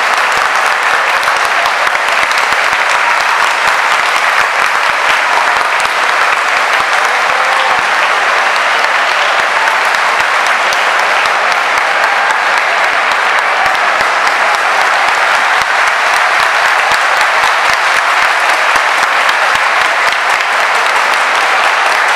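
Large stadium crowd applauding steadily, dense clapping from many hands.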